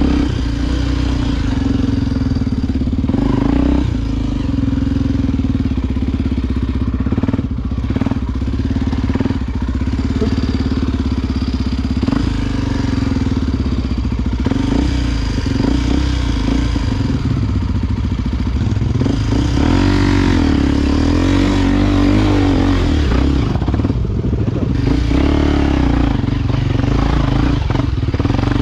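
Honda XR Tornado's single-cylinder four-stroke engine running steadily under way on a dirt trail, its pitch rising and falling for a few seconds about two-thirds of the way in. There are occasional knocks from the rough ground.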